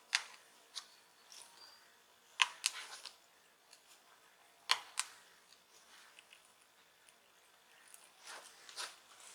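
Sharp plastic clicks, several of them in quick pairs, and softer scraping near the end, as a guitar plectrum is slid and levered under the edge of a smartphone's glued plastic back cover.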